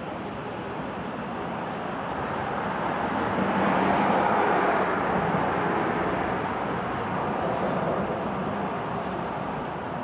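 Street traffic noise: a vehicle passing, swelling to its loudest about four seconds in and then slowly fading.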